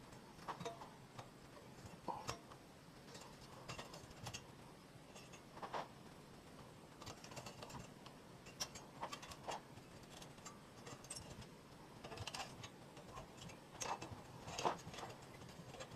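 Faint, irregular clicks and light metallic taps of hand tools working a small piece of forged steel.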